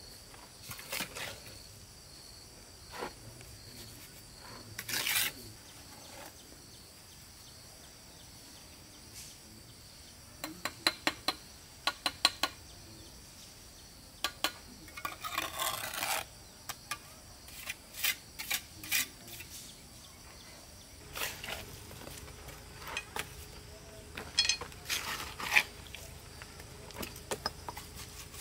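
Scattered sharp clinks and taps of hand work, with quick runs of clicks and a scrape of about a second near the middle, over steady chirring of insects.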